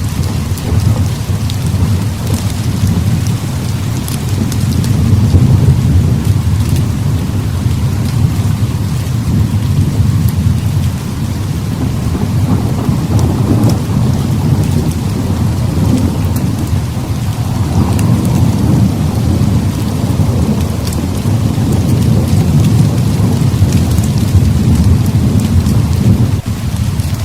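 Heavy rain with thunder rumbling on and off, the low roll swelling and fading several times over the steady hiss of the rain, with faint scattered ticks.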